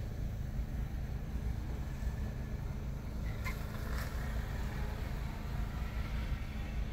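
Steady low rumble of an idling car, heard from inside its cabin, with two short faint clicks about three and a half and four seconds in.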